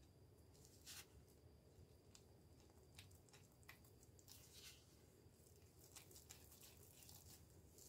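Very faint, irregular scraping and rustling of a silicone spatula stirring dry flour into wet sourdough starter in a bowl.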